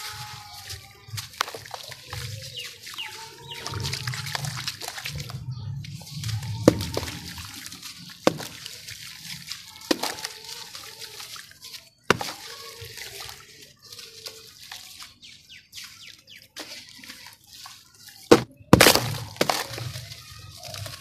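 Hands crumbling and squeezing lumps of dry sand-cement mix: gritty crunching and crackling while powder and grit trickle and patter into a tub. Two loud crunches stand out near the end.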